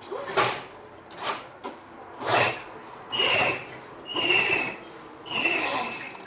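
Classic roller shutter being worked by hand, its slats rattling through the guides in six jerky strokes about a second apart. The last three strokes each carry a high, slightly falling squeak.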